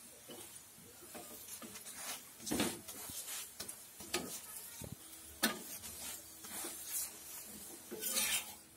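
Metal spatula scraping and pressing a pumpkin paratha on an oiled griddle, with several sharper scrapes and taps over a light sizzle of the frying oil.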